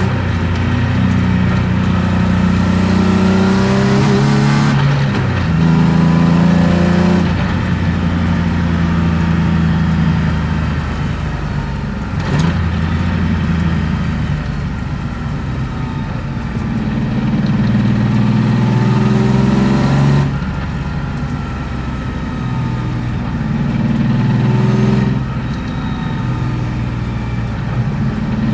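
A 1993 BMW E36 325i's M50B25 2.5-litre inline-six with aftermarket headers and exhaust, heard from inside the car while being driven hard. The revs rise under acceleration and fall away abruptly four times. There is a single sharp click about twelve seconds in.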